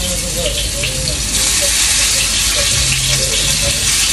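Water running from a kitchen tap into the sink, growing stronger a little over a second in.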